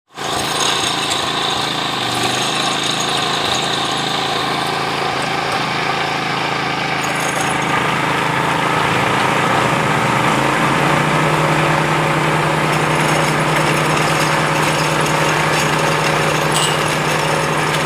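Engine of a well-drilling machine running steadily; about ten seconds in its note changes and settles into a stronger, steady low hum.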